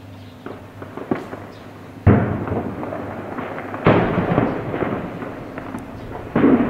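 A few sharp gunshots, then three heavy blasts from the fighting: one about two seconds in, one about four seconds in and one near the end. Each is followed by a long rolling echo.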